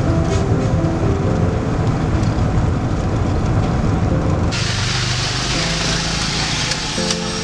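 Road and engine noise of a moving car heard from inside the cabin, a steady low rumble, with a soft melodic music score over it. About four and a half seconds in the sound changes abruptly to a brighter, hissier traffic and street ambience.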